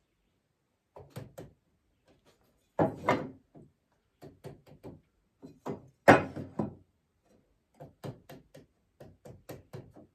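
Cedar picket boards being handled and knocked into position while being squared up: a run of short wooden knocks and taps, with two louder thumps about three and six seconds in.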